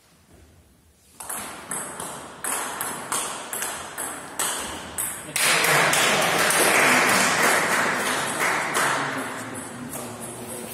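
Table tennis rally: a celluloid-style ball clicking back and forth off the rackets and the table, two or three sharp ticks a second for about four seconds. About five seconds in the rally ends and a loud burst of clapping and voices from the onlookers takes over, slowly dying away.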